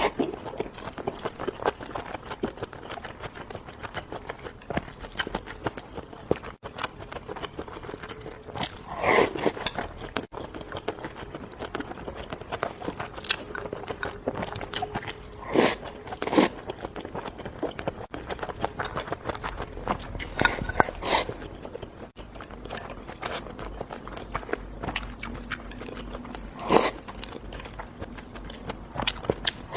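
A person biting and chewing crunchy food close up, a steady run of small crunches and mouth clicks with a few louder bites spread through.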